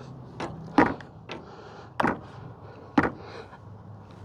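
Hand tools knocking and clicking against the steering box fittings as a seized power steering line nut is worked loose. There are a few sharp knocks, roughly one a second, with the loudest three near one, two and three seconds in.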